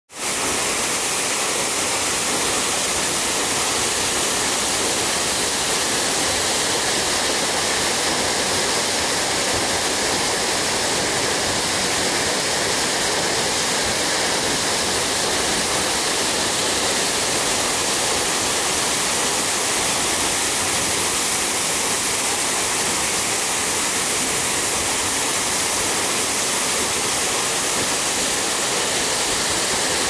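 Waterfall: a steady, even rush of falling water, hissy and unbroken throughout.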